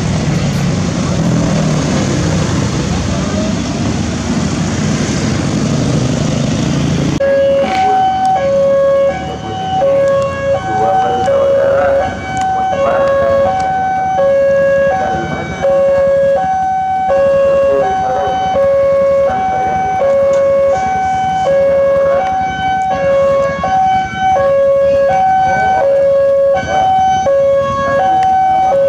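Road traffic of motorcycles and cars passing a railway level crossing. About seven seconds in, it gives way to the crossing's electronic warning alarm: two tones alternating high and low, repeating steadily over lighter traffic.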